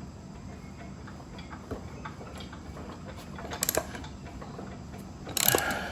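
Socket ratchet wrench clicking as it turns a 19 mm wheel nut, with light metal ticks between strokes and a short run of clicks about halfway through and again near the end.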